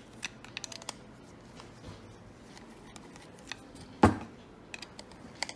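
Small metallic clicks and taps of a screwdriver working loose the screws on a water-purifier pump's motor head, with one louder knock about four seconds in.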